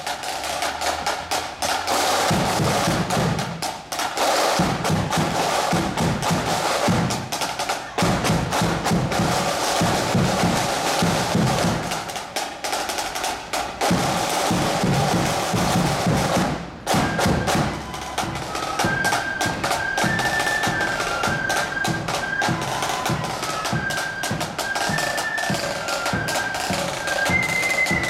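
Marching flute band: snare and bass drums play a marching beat on their own, break off briefly about seventeen seconds in, then flutes come in with a melody over the drums.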